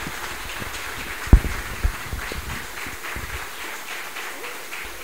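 Audience applauding, a dense patter of clapping hands. Two low thumps stand out about a second and a half in.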